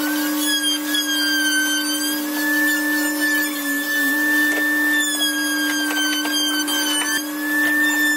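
Electric power tool motor running steadily: a constant low hum under a higher whine that wavers slightly in pitch.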